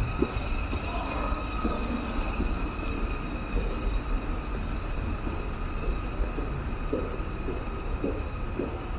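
A steady low mechanical rumble under a constant high hum of several held tones, with faint light knocks through it.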